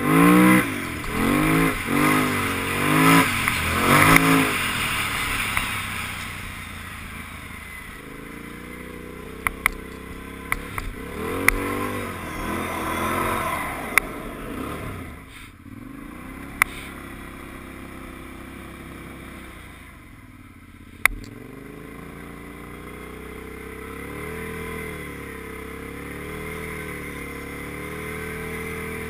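Kawasaki KFX quad's engine revving hard in several quick rising pulls at the start, then running at lower, varying revs with a few more pulls. A handful of sharp single clacks come through the middle.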